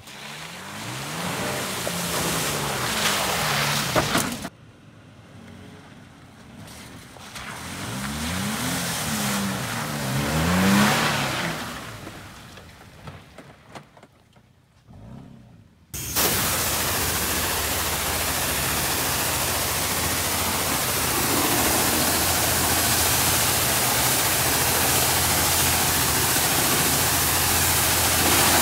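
Pickup truck engine revving twice, its pitch rising and falling each time. From about halfway on, a steady, loud rushing noise over a low hum.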